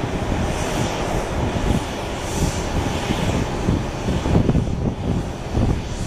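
Airbus A320-214's CFM56 jet engines heard from beside the runway as the airliner rolls out and slows after landing: a continuous noisy rush with uneven low rumbling.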